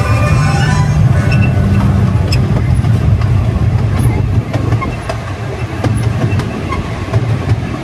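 Casey Jr. Circus Train ride cars running along the track: a steady low rumble with scattered clicks, easing a little about halfway through.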